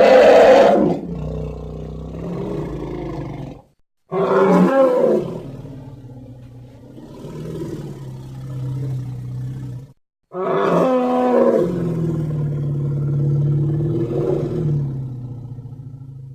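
Triceratops sound-effect calls, three in a row: each opens with a loud bellowing roar and trails off into a long low rumbling drone that fades, with brief silences between them.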